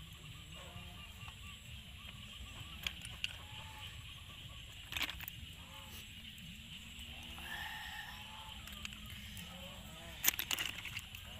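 Cooked snail shells clicking as they are handled and their meat is picked out with a bamboo skewer: a few sharp clicks, the loudest about five seconds in and near the end. Animal calls waver in the background.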